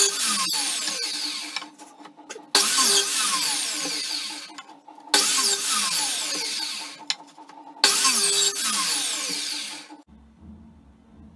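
Compound miter saw cutting pallet-wood boards: four times the motor comes on with a loud whine and cut, then the blade winds down with a falling pitch, about every two and a half seconds. Near the end only a faint low hum remains.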